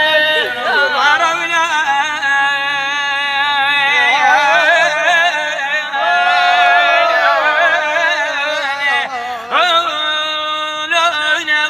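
A man singing long, ornamented held notes with heavy vibrato in Arabic style, with no clear words.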